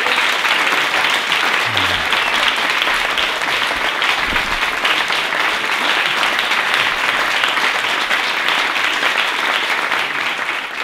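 Audience applauding: a dense, steady round of clapping from a large crowd in a hall.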